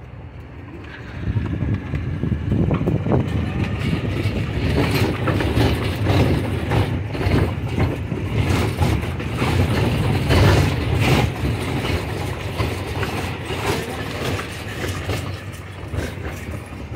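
Loud street traffic, a heavy engine running close by, starting up about a second in and staying loud, with irregular knocks and rattles over it.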